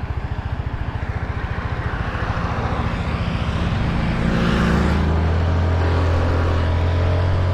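Motorbike engine running while riding on the road, with wind and road noise. Its rapid low pulsing gives way to a steadier, louder drone after a swell of rushing noise about halfway through.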